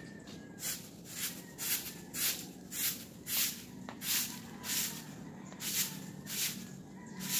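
Long-handled broom sweeping a wet concrete floor: a run of quick swishing strokes, about one and a half to two a second.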